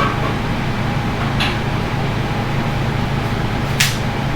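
Steady mechanical hum, like a fan running, with three short sharp clicks: one at the start, one about a second and a half in, and a louder one near the end.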